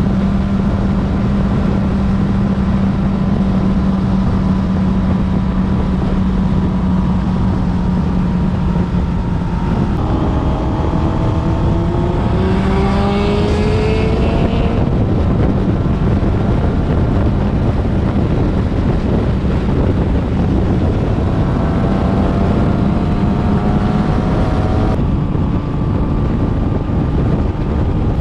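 Motorcycle engine running at road speed under heavy wind noise on the microphone. About ten seconds in the engine note changes and then climbs steadily for a few seconds as the bike accelerates, and it shifts again near the end.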